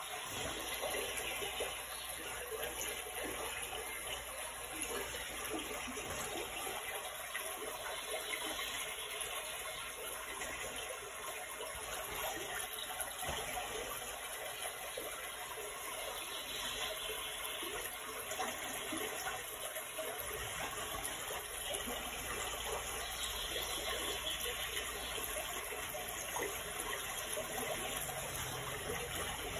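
Steady running water, an even rushing noise with no change.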